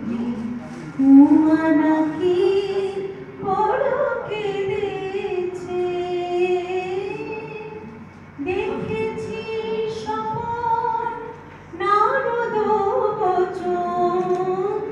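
A woman singing a Bengali song solo into a microphone, in long held, wavering notes, with short breaks between phrases about eight and about eleven and a half seconds in.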